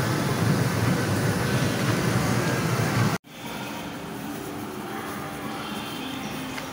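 Loud, low-pitched din of an indoor amusement area, cut off abruptly about three seconds in. A quieter steady hum with faint music follows.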